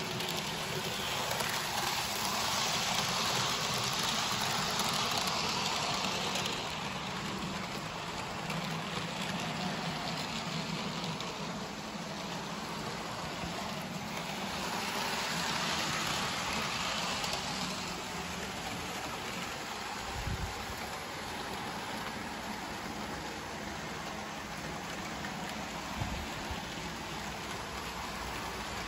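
Hornby OO gauge model trains running around the track: a steady hiss and rattle of small wheels on rail with the whirr of their electric motors, swelling louder twice as a train passes close by. Two soft low thumps come later on.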